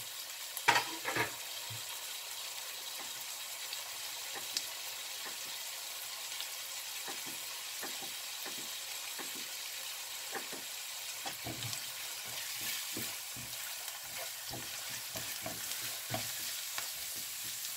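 Chopped onion, garlic, herbs and grated red pepper sautéing in oil in a nonstick frying pan: a steady sizzling hiss with small crackles that grow more frequent in the second half. A couple of sharp knocks come about a second in, and a spatula stirs the pan near the end.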